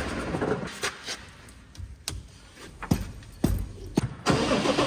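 A handful of sharp, separate metal clunks and clicks as a tractor's drawbar is coupled to a trailed sprayer's hitch eye, over a low background.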